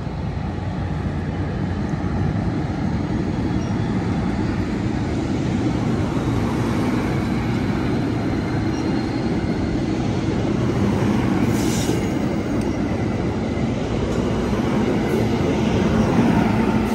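Amtrak San Joaquin passenger train pulling out past the platform: a steady rumble of its stainless-steel coaches' wheels on the rails, growing a little louder as the cars go by.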